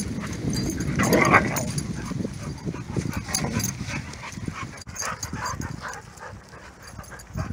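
Dogs play-fighting: a loud burst of dog vocalizing about a second in, then short yips and whines over the scuffle of paws on the ground, growing quieter toward the end.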